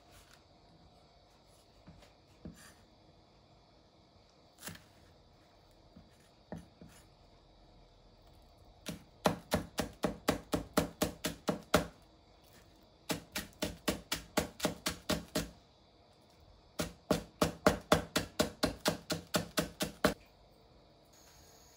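Kitchen knife finely chopping chives on a wooden cutting board: three quick runs of chopping strokes, about five a second, in the second half, after a few scattered light knocks.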